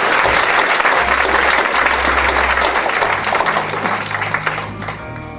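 Audience applauding in a hall, dense clapping that thins out near the end as music begins to play.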